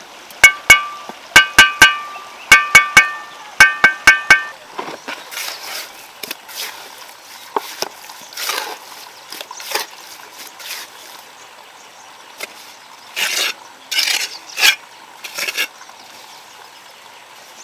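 Hard tool strikes in quick groups of two or three, each with a short metallic ring, followed by a run of irregular scraping strokes.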